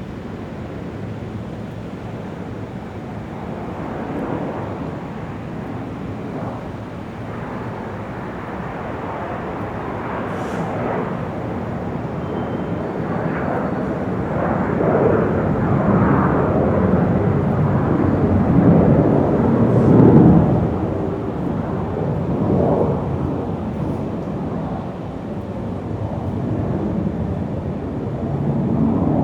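Jet plane flying over low, its engine rumble building for about fifteen seconds to its loudest about two-thirds of the way through, then fading, over the steady hum of an airport.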